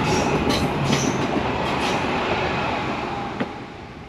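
A train passing close by, with faint wheel squeal and rail clicks, loud at first and then fading away over the last second or so.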